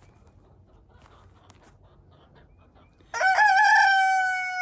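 A rooster crows once, starting about three seconds in: one long, loud call that wavers at first, then holds and slowly falls in pitch.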